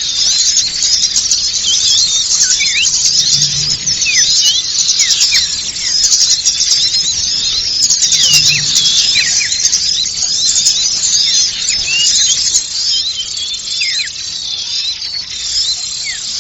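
Dense, noisy chorus of many small songbirds chattering and chirping all at once, a mass of rapid, high-pitched short notes and quick slurred chirps: a bird-lure call recording meant to draw in small birds. It eases off slightly near the end.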